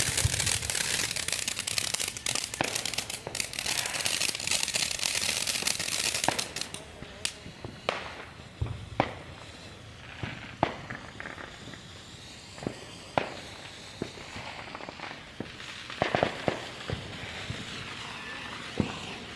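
Consumer fireworks going off: a dense, hissing crackle for about the first six seconds, then scattered sharp pops and cracks at irregular intervals.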